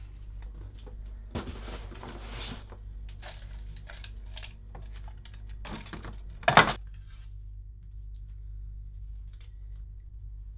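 Small clicks and clatter of objects being handled, with a short, loud knock about six and a half seconds in, over a steady low hum.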